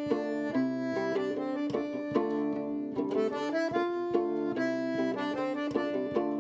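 Instrumental background music: held chords under a quick run of short plucked notes.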